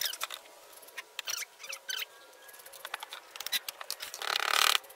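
Light scattered taps and clicks of hammers, nails and pre-cut wooden birdhouse parts being handled on a plywood table, with a short, louder rasping noise near the end.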